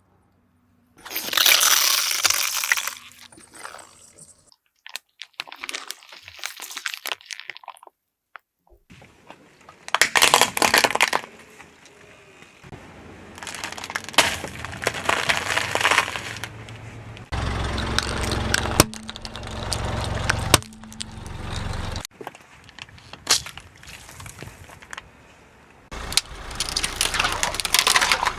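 Car tyres rolling over and crushing crunchy objects: several separate bouts of cracking and crunching, each starting and stopping abruptly.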